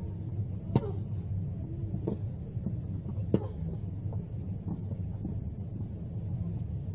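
Tennis ball struck back and forth by rackets in a rally on a grass court: three sharp hits about 1.3 seconds apart, then a fainter one, over a steady low background rumble.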